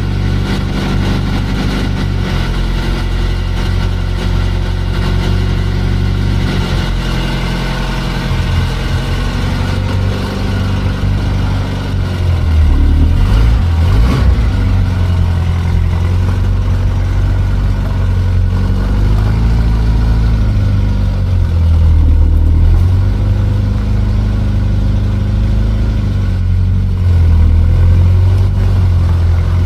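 Renault 750 (4CV)'s small rear-mounted four-cylinder engine running at low speed while the car is driven slowly out of a garage. The engine gets louder about twelve seconds in, and the revs rise and fall a few times as the car moves off.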